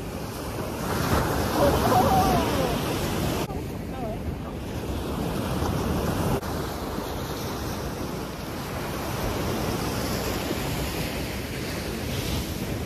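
Ocean surf breaking and washing up a sandy beach, a steady wash of noise, with wind rumbling on the microphone.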